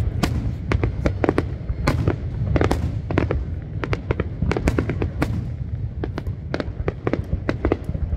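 New Year's Eve fireworks display going off: a rapid, irregular run of sharp bangs and cracks over a steady low rumble.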